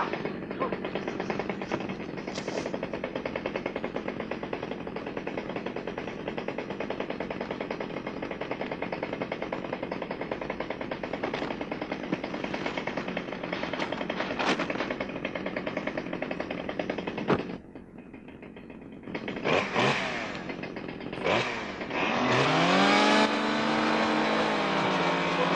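Gasoline chainsaw running with a fast, steady chatter. It drops off briefly after about 17 seconds, then is revved in bursts, and near the end its pitch repeatedly rises and falls.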